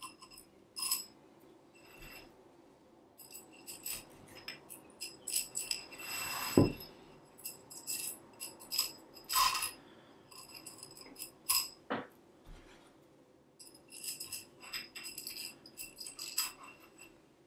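Light metallic clinking and jingling as metal cord ends are hooked onto metal tubes and the tubes tap together, each click ringing briefly. There is a louder knock about six and a half seconds in.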